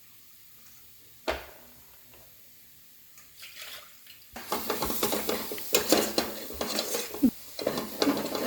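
Quiet at first, with one sharp knock about a second in. From about halfway, a cooking utensil scrapes and clatters against the pan as besan (gram flour) is stirred while it roasts.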